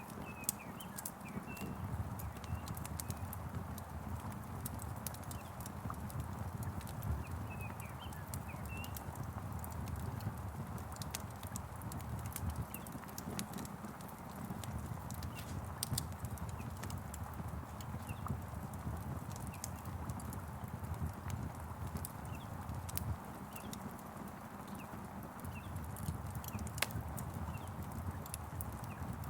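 Wood fire crackling and popping with a steady rain-like hiss and a low rumble beneath. A few faint bird chirps come in during the first several seconds.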